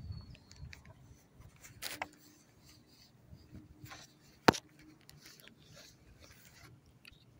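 Light rubbing and handling noise with scattered small clicks, and one sharp click about four and a half seconds in.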